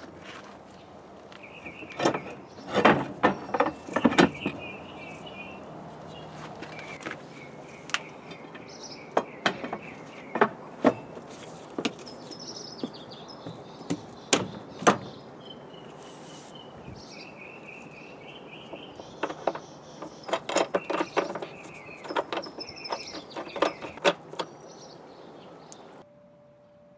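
Sharp clicks and knocks as the clamp of a Jandy CL580 cartridge pool filter is fitted around the tank and lid and pressed together, coming in three clusters. Birds chirp in the background.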